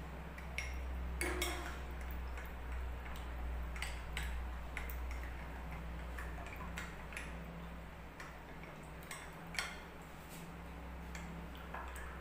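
Steel spoon stirring custard powder into milk in a glass tumbler, ticking and clinking against the glass in an irregular run of small taps while the powder is mixed smooth. A low steady hum lies beneath.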